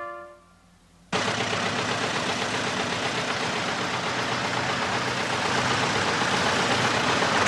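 Green Deutz tractor's air-cooled diesel engine running steadily, cutting in suddenly about a second in as the last notes of music die away, and growing a little louder near the end.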